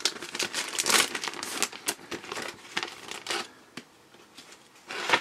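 Clear plastic packaging crinkling and rustling as hands handle it and slide out stiff plastic planner dividers. The crackling is busiest through the first three and a half seconds, then dies down to faint rustles.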